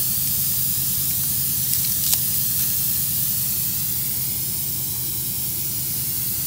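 Air hissing steadily at a punctured loader tire that is being plugged, over a low steady hum. A single sharp click comes about two seconds in.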